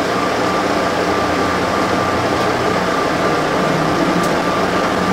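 SFO AirTrain people-mover car running along its guideway, heard from inside the cabin: a steady rolling rumble and hiss with a thin, steady high whine.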